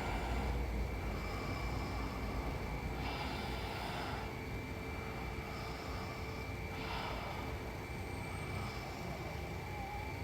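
A sleeping woman snoring, with a noisy breath about every three to four seconds over a steady low hum.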